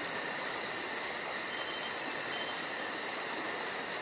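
Crickets chirring steadily, a fast regular pulsing high up over an even hiss.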